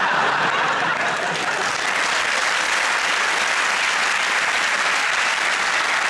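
Studio audience applauding steadily, a sustained applause break greeting a punchline.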